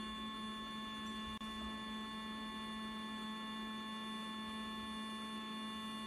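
Small irrigation pump running with a steady electric hum, switched on by a relay together with a solenoid valve as the automated watering cycle waters a plant.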